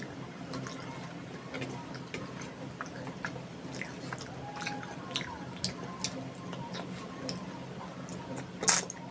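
Close-miked chewing and wet mouth sounds of someone eating soft, saucy khichdi and egg curry: scattered small clicks and smacks, with one much louder short smack near the end.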